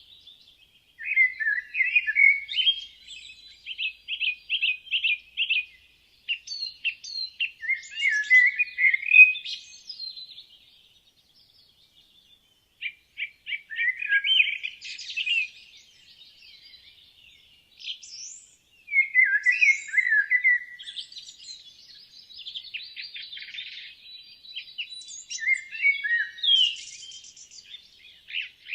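Woodland songbirds singing: phrases a few seconds long of fast repeated and warbled notes, with short pauses between them.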